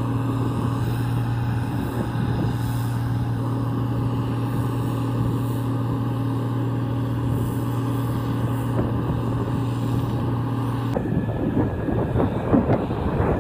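Gleaner R55 combine running at a steady, even drone while its unloading auger empties grain into a trailer. About eleven seconds in, it cuts to gusty wind buffeting the microphone.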